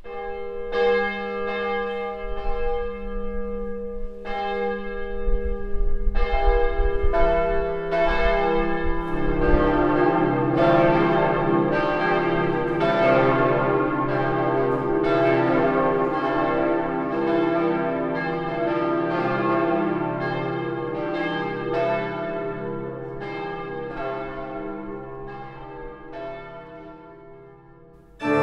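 Several church bells of the Christuskirche tower ringing together in a full peal. The lower bells join a few seconds in, and the ringing fades away near the end.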